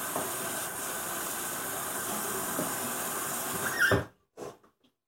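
Tap water running steadily as a doll's hair is rinsed under it, a continuous hiss that cuts off abruptly a little under four seconds in, followed by one short faint sound.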